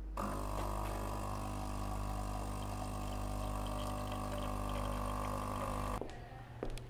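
Coffee machine running with a steady mechanical hum. The hum starts just after the opening and cuts off suddenly near the end.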